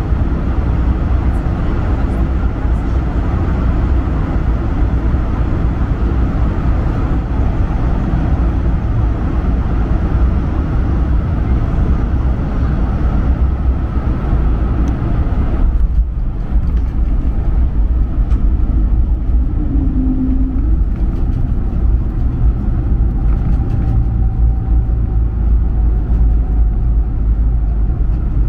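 Inside the cabin of a Bombardier CS300 airliner around landing: a loud, steady low rumble of its Pratt & Whitney PW1500G geared turbofans and airflow, with a brief break about halfway through.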